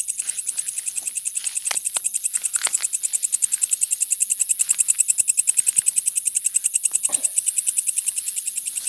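Night crickets trilling in a fast, steady run of high chirps, about ten a second. A few brief rustles come from the grass at about two seconds and again near seven seconds.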